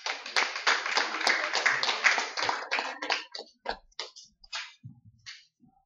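Audience applauding: a dense spell of clapping for about three seconds, then thinning to a few scattered claps that die out.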